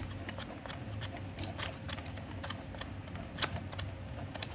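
Scattered small metallic clicks and taps from steel adapter parts of an injector extractor being threaded together and handled by hand, over a low steady hum.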